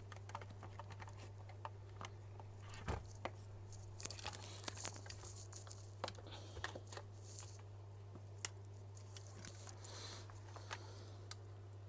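Small clicks and rustles from handling meter probes and small parts at a repair bench, over a steady low electrical hum.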